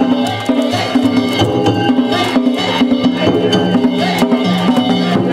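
Danjiri festival music (danjiri-bayashi): drums and metal gongs struck in a fast, unbroken rhythm over sustained low tones.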